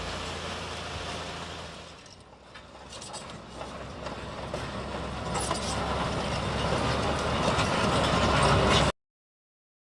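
Bulldozer running with clanking of its machinery and tracks. It dips about two seconds in, builds louder, and cuts off abruptly near the end.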